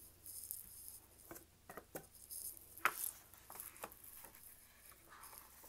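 A hardcover picture book being handled: the cover opened and its stiff pages turned, with faint rustles and small taps and one sharper click about three seconds in.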